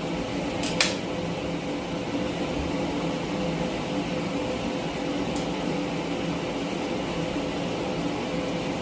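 Steady machine hum, the kind a running cooling fan makes, with a few constant tones in it. Two sharp clicks come about a second in, and a fainter tick comes about five seconds in.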